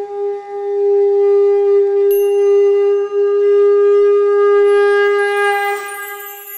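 Conch shell (shankh) blown in one long, steady note that fades out near the end. Small bells begin jingling in the last second.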